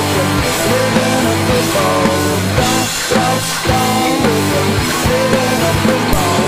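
Hard rock band recording playing an instrumental passage without vocals: electric guitar lines with bent notes over bass and a steady drum beat.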